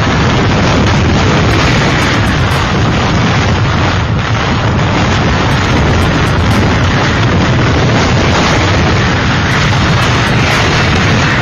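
Hurricane-force wind buffeting the microphone: a loud, continuous roar with a heavy low rumble that does not let up.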